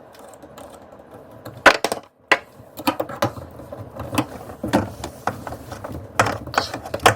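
Irregular clicks and knocks of hand tools and drain fittings under a kitchen sink as a dishwasher drain hose is worked loose, with one loud knock about two seconds in.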